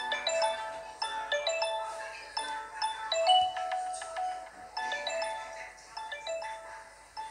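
An LG mobile phone ringtone playing: a quick melody of short pitched notes.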